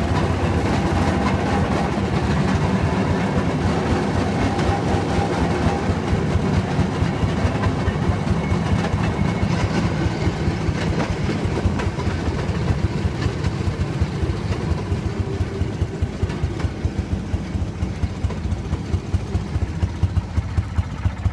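Engine of a restored St. Louis Southwestern M19 railroad speeder running as the car rolls along the rails and slows, heard from inside its cab. Near the end it settles into an idle of distinct, evenly spaced firing beats.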